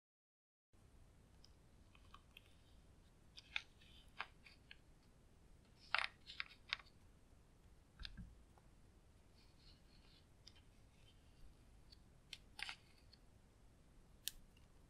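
Faint, scattered clicks and short scrapes of a metal tool digging pressed eyeshadow and glitter out of a palette's pans and dropping it into a tray of clear slime, with a small cluster of clicks about six seconds in.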